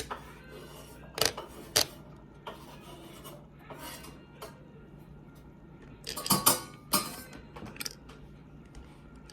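Scattered sharp clicks and light clatter of plastic toy parts and small metal screws being handled and fitted during a screwdriver repair, with a cluster of louder clicks about six to seven seconds in.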